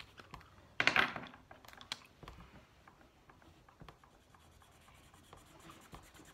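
Felt-tip markers rubbing and scratching on paper during colouring, with a short louder scuff about a second in and faint scattered ticks after it.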